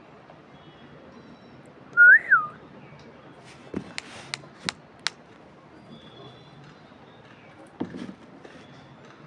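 A single clear whistle about two seconds in, sliding up and back down in pitch. It is followed by a few sharp clicks and, near the end, a duller knock.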